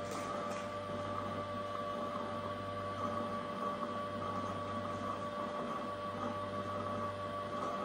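Ecovacs Deebot robot vacuum and its water-tank docking station running in the dock: a steady motor whine with two held tones over a low hum.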